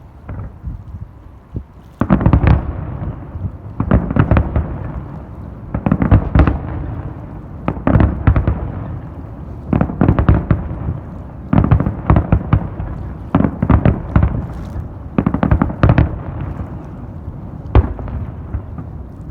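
New Year fireworks going off: after a quieter couple of seconds with a few pops, repeated sharp bangs and crackling bursts come in clusters every second or two, with a low rumble between them.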